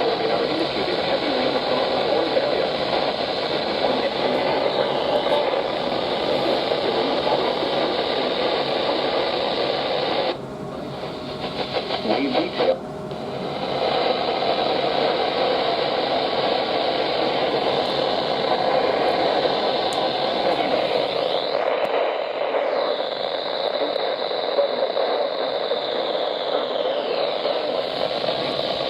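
Static hiss from a radio receiver tuned to a weather alert channel, with no voice on the air. The hiss drops away for about three seconds about ten seconds in, then returns.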